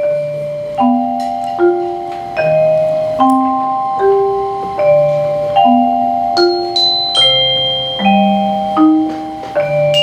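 Percussion ensemble playing on mallet instruments: a steady pattern of low, ringing marimba-like notes struck about every 0.8 seconds under long-held higher tones, with high bell-like glockenspiel notes ringing out near the end.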